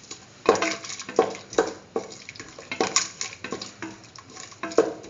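A spoon stirring spiced chicken and potato mixture in a cooking pot, with repeated irregular scrapes and knocks against the pot, about ten strokes.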